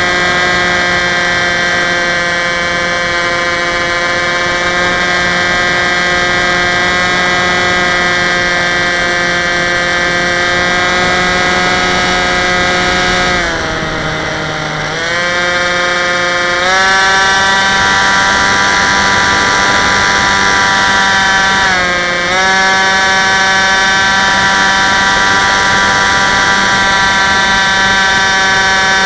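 Dynam Hawk Sky RC plane's electric motor and propeller whining steadily over a hiss, heard from a camera on the airframe. About halfway through the whine drops in pitch as the throttle is eased back, then climbs back up in steps a few seconds later. A short dip in pitch comes again about three-quarters of the way through.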